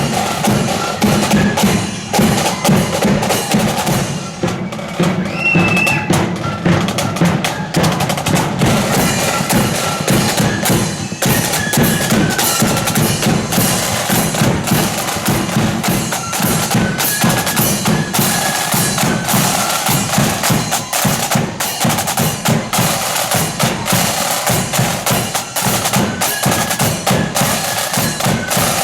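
Marching flute band playing: flutes carry a melody over rapid snare drumming and bass drum beats.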